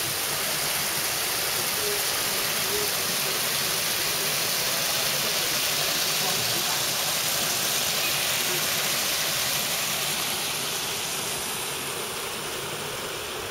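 Water rushing steadily along a stream channel, a constant hiss that eases off a little near the end.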